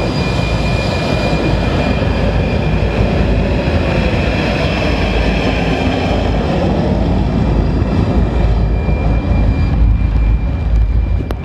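MiG-15 UTI's centrifugal-flow turbojet engine running on the ground: a loud, steady rumble with a thin high whine on top.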